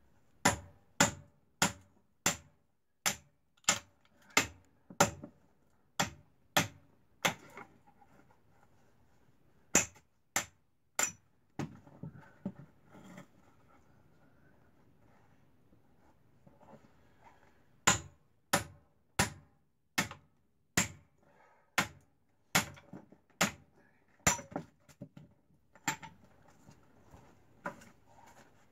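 Hammer striking the back of a hatchet driven into firewood, splitting kindling: sharp metal-on-metal knocks with a short ring, about one and a half a second, in two long runs with a pause between.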